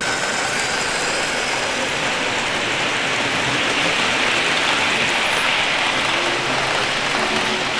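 00 gauge model trains running on the track: a steady rattling rush of wheels on rail joints and small electric motors, a little louder around the middle as trains pass close.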